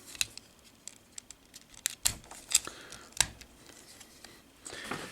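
Scattered sharp clicks and taps of hard plastic as a Transformers action figure is handled and its parts are folded and pressed into place, the loudest clicks about two and two and a half seconds in.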